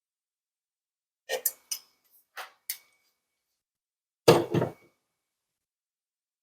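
Light clicks and taps of tools being handled against a wooden cabinet, then a louder double knock about four seconds in.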